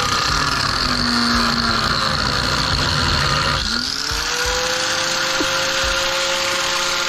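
Angle grinder grinding off steel parts: the motor runs lower while the wheel is loaded, then spins back up to a steady whine about three and a half seconds in as the load comes off.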